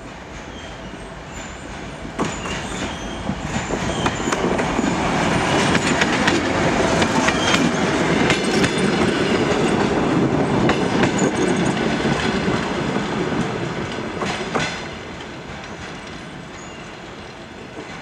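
A DM62 diesel locomotive with its two-stroke V12 diesel, hauling passenger coaches, passes close by. The sound builds over the first few seconds and is loudest through the middle as the coaches rumble and clack over the rail joints. It drops off suddenly near the end as the last coach goes by, then fades as the train moves away.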